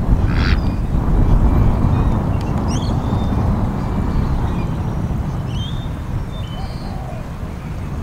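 Wind rumbling on the microphone, with one short harsh call about half a second in and a few faint high chirps later on.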